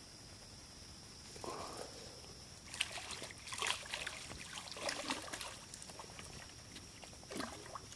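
Hooked largemouth bass splashing and thrashing at the water's surface while being played on a rod, in a cluster of short, irregular splashes from about three seconds in.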